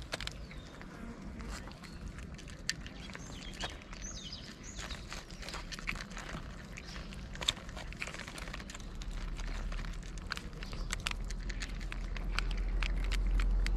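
Cats eating wet food from a foil tray and a bowl: many small, irregular clicks of chewing and licking. A low rumble grows louder in the last few seconds.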